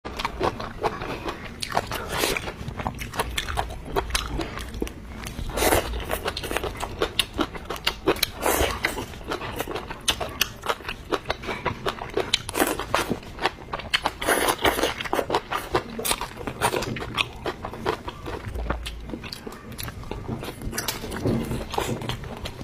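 A person eating, biting and chewing food with many irregular sharp crunches and clicks.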